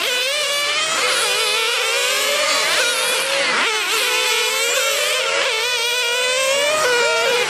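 Several 1/10-scale nitro RC touring cars racing, their small two-stroke glow engines whining at high pitch, several at once. Each engine's pitch rises and falls as the car accelerates and backs off.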